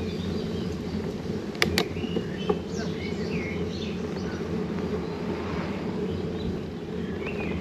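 Steady low rumble of wind on the microphone while riding a bicycle into a headwind, with birds chirping now and then. Two sharp clicks come about one and a half seconds in.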